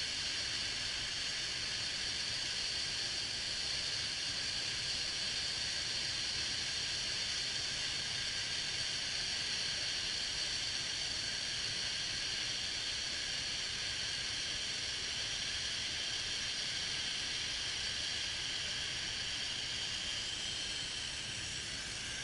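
Steady hiss of air and Sea Foam cleaner being sucked into an open vacuum hose on a Toyota Tundra's 4.7 L V8, with the idling engine as a faint low rumble underneath. The engine's intake vacuum is drawing the cleaner in as it is poured.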